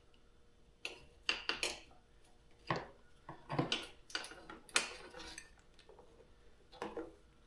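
Small metal parts clinking and tapping: battery terminal hardware, ring terminals and tools being handled while wires are fastened to an ATV battery's terminals, in about eight separate clinks.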